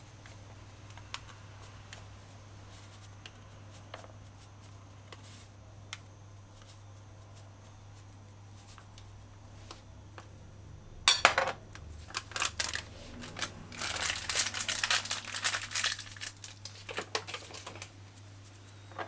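Plastic packet of coconut milk powder crinkling as it is handled, in loud crackling bursts starting about eleven seconds in, after a quiet stretch with a low steady hum and a few faint clicks.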